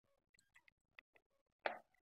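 Wooden rolling pin rolling out a stuffed paratha on a steel plate: faint scattered clicks and taps, with one louder short knock near the end.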